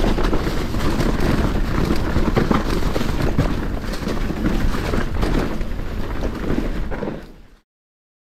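Wind rushing over a chest-mounted action camera, with the tyres and frame of a Commencal Meta SX V4 enduro mountain bike rattling and knocking over a leaf-covered dirt trail during a fast descent. The noise fades out to silence near the end.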